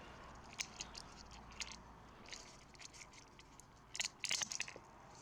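Soft crinkling and small scattered clicks of small parts being handled in their plastic packaging, with a louder cluster about four seconds in.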